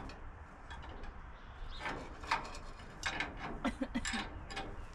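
Ratchet wrench clicking in a few short runs on the front-end bolts of a Ford Model A, about two seconds in and again around three to four seconds in.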